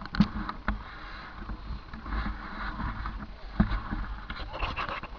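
Irregular sharp knocks and scuffing close to the helmet camera, with crunching on loose gravel, as the rider moves about with a downhill mountain bike at a standstill.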